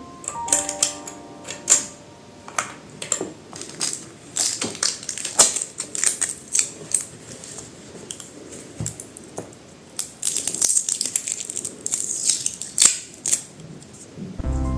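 Irregular clicks, taps and rustling from handling the small plastic parts of a mechanical keyboard: the 2.4GHz USB dongle and its magnetic storage cover. Soft background music plays under it, clearest in the first second.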